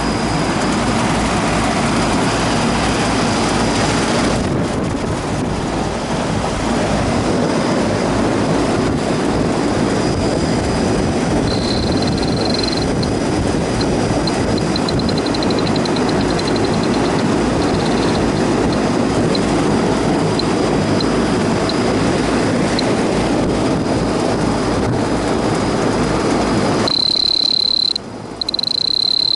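Rooftop Ducane air-conditioning condenser running, a loud steady whoosh of its fan and machinery, which cuts off suddenly near the end. After it a steady high insect buzz is left, with faint high chirps in the middle.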